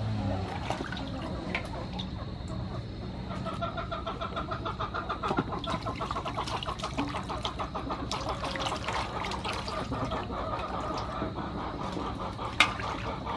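Water sloshing and splashing in an aluminium basin as cabbage, carrot and green onions are rubbed clean by hand. From about three seconds in a bird's call repeats in rapid pulses behind it, and one sharp knock comes near the end.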